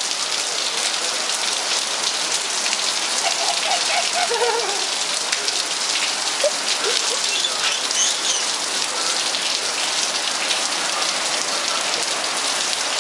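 Heavy rain falling steadily, a constant even hiss of drops on the ground and surfaces. Faint short voices are heard a few seconds in.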